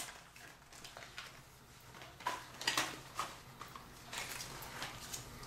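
Faint, irregular small clicks and rustles of hand tools and small parts being handled, a few light taps about two to three seconds in and again near the end.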